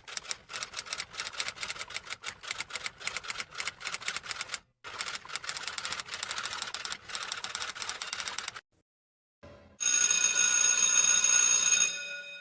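Typewriter keys clattering in quick runs of strikes for about eight seconds, with a short pause partway through. Near the end a steady high ringing tone sounds for about two seconds, then fades.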